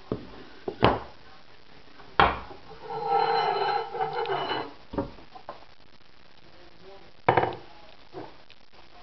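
Handling noise on a countertop: a wooden block and a metal pellet-gun barrel tube knocked, set down and picked up, with several sharp knocks and a longer rattling scrape of over a second about three seconds in.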